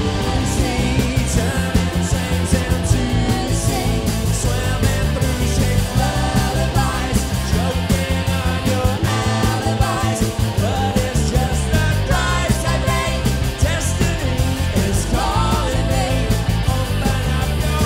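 Live band playing a song with a steady beat: two female singers at microphones over electric guitar, a drum kit and keyboards.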